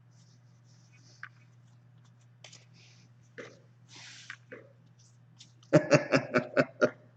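Soft rustles and clicks of trading cards being handled, then a short loud run of coughs, about six quick bursts, a little before the end.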